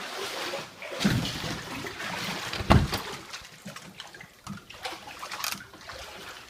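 Floodwater sloshing and splashing, with two heavier, deeper sloshes about a second in and near the middle.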